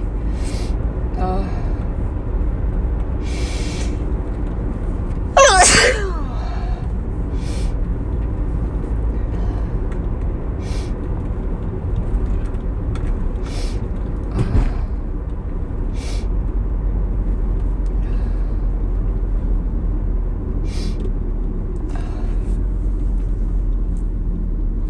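A person sneezing once, loud, about five and a half seconds in, with a voiced cry that falls in pitch. Short hissing sniffs come every second or few seconds from a nose that tickles, over a steady low hum.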